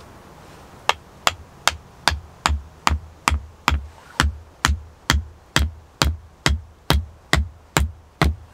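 An axe head hammering a wooden stake into an earth floor: a steady run of about eighteen sharp knocks, a little over two a second, starting about a second in, the later ones with a deeper thud.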